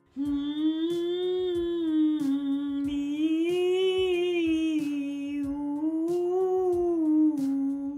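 A woman's alto voice singing a resonance warm-up vocalise on 'mm, mi, ou' in one long breath, the pitch rising and falling twice. It stops just before the end.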